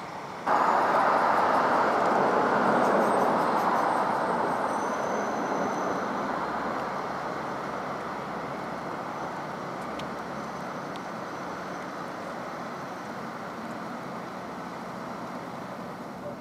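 Road traffic noise: a loud rush that starts suddenly, then slowly fades over several seconds to a steady lower hum.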